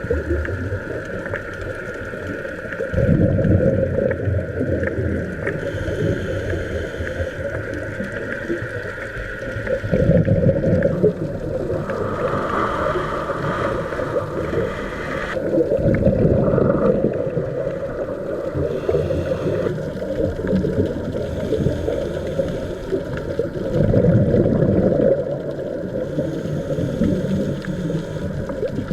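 Scuba diver breathing underwater: bubbles rush out at each exhalation about every six to seven seconds, with a fainter hiss from the regulator between them and a steady high whine underneath.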